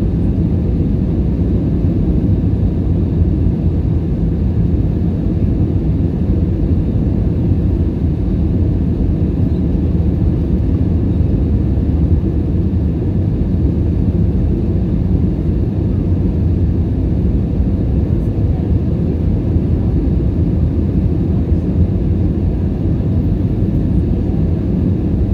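Airbus A320neo cabin noise on final approach, heard from a seat over the wing: a steady low rumble of the Pratt & Whitney PW1100G geared turbofan engines and the airflow past the airframe.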